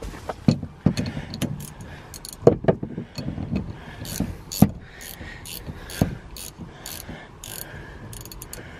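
Ratchet wrench clicking in irregular bursts, with metal clinks and knocks, as a 17 mm nut is worked on top of the rear strut's upper mount. The nut will not tighten: the strut shaft turns with it.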